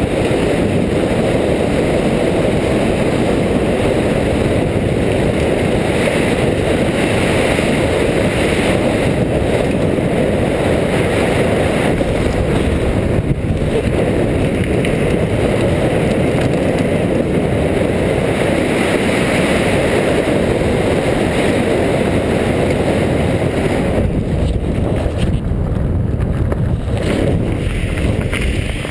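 Car driving on a dirt road, heard from a camera mounted on the car's side: wind rushing over the microphone with tyres rolling on the dirt and engine noise beneath, steady and loud, thinning briefly about halfway through and again near the end.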